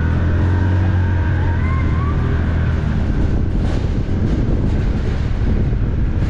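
Side-by-side UTV engine running steadily as it drives over rough pasture, with a short rising whine about a second and a half in.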